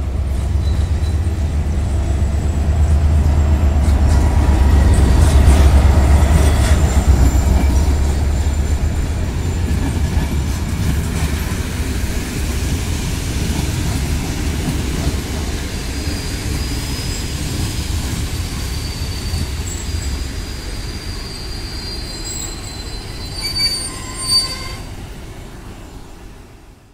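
Class 64 GM diesel-electric locomotive rumbling past at the head of an arriving passenger train, loudest about five to seven seconds in. Its coaches then roll by over the rails, with high thin wheel squeals in the second half as the train slows into the station, before the sound fades near the end.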